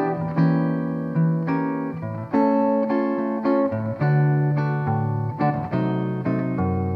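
Archtop jazz guitar played finger-style in chord-melody: plucked chords struck about once a second and left to ring, with bass notes below and the melody on top.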